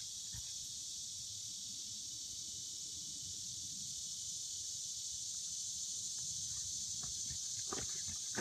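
Steady, high-pitched insect drone, the chorus of cicadas, with a few faint clicks near the end.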